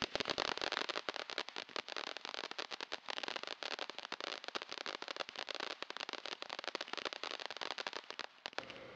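A 200-gram consumer firework fountain spraying sparks with a dense, rapid crackle of many small pops over a steady hiss. It stops about eight and a half seconds in, with a few last pops.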